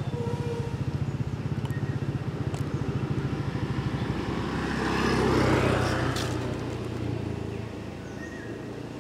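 Motorcycle engine running with a fast, even low putter, swelling louder about five seconds in and then easing back down.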